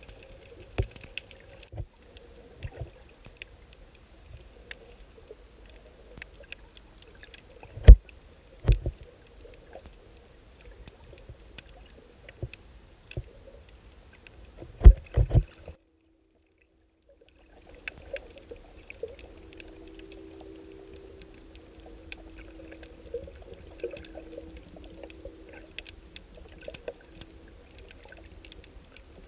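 Underwater sound picked up by an action camera in its waterproof housing: scattered crackling clicks over a low wash, with two pairs of heavy dull thumps against the housing. In the second half a faint steady hum joins in.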